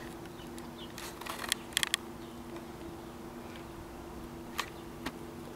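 A few sharp clicks and taps from the camera being handled and moved, over a faint steady low hum.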